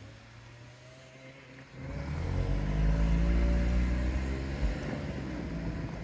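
A motor vehicle's engine passing close by: it comes in suddenly about two seconds in, is loudest for a second or two, then slowly fades.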